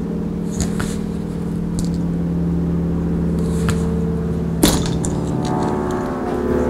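A steady machine hum of several fixed pitches, with faint ticks and one sharp click about four and a half seconds in as crimped wire connectors are handled.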